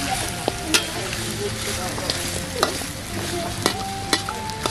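Metal spatula stirring pork trotters and Dayak eggplant in a wok, clinking and scraping against the pan every so often over the steady sizzle of frying in oil.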